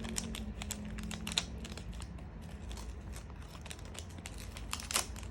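Crinkling and crackling of a foil Match Attax trading-card pack being handled and opened, with scattered small clicks; the sharpest crackle comes near the end.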